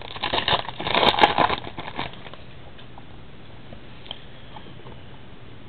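Crinkling and rustling of a trading-card pack and cards being handled for about two seconds, then only faint room noise.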